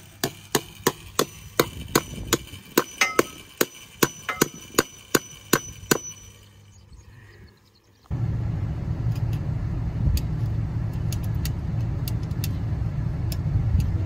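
Rapid hammer blows on metal at a wooden fence post during barbed-wire fence repair, nearly three a second with a metallic ring, stopping about six seconds in. About eight seconds in, a steady low rumble with a few faint clicks.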